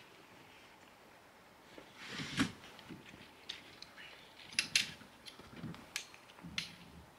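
A handful of irregular sharp clicks and knocks with a few soft thuds, the loudest about two and a half seconds in and two close together near five seconds, over faint background.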